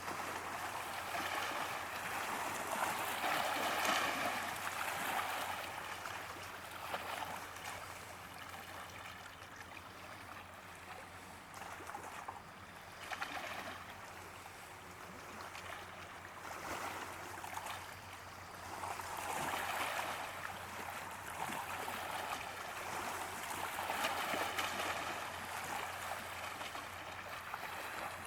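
Small waves washing against the shore of a large reservoir, a steady wash of water that swells and fades every few seconds.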